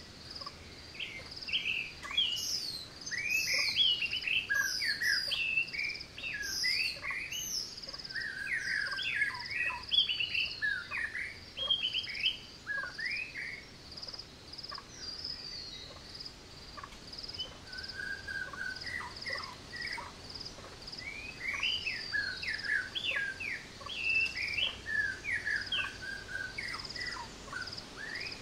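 Several forest birds singing and calling in quick, varied chirps and whistles, thinning out midway and picking up again, over a steady, high-pitched pulsing call of an insect.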